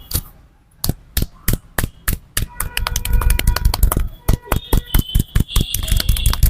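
A barber's hands slapping and tapping on the head during a massage. It starts as single sharp slaps about three a second and quickens to a fast rhythmic patter a little before halfway.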